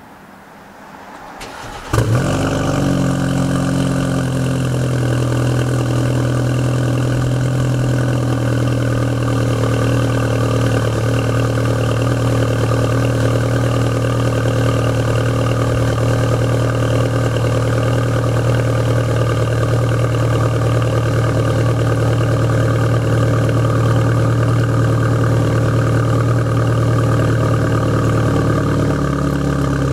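BMW 428i's N20 four-cylinder turbo engine with an AWE quad-tip exhaust, cold-started: the starter cranks briefly about two seconds in and the engine catches at once, then holds a steady, pretty damn loud fast cold idle. Near the end the idle drops a little as it starts to settle.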